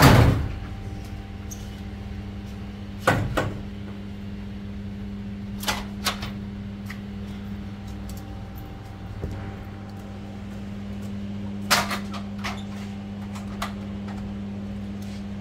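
Metal knocks and clanks from an aluminium extension pole and ladder being handled. The loudest comes right at the start, followed by scattered lighter knocks, all over a steady low hum.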